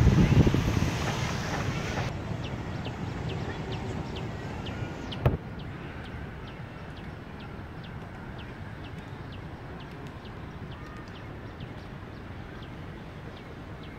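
Footsteps on stone paving at a steady walking pace, about two a second, over a low steady outdoor background. Wind buffets the microphone with a loud rumble for the first couple of seconds, and there is one sharp click about five seconds in.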